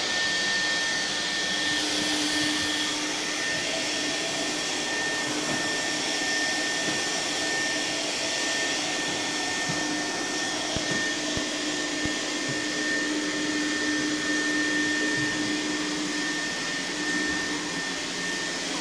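Steady whirring of an electric appliance motor: an even rushing noise with a thin high whine and a low hum, both held at one pitch.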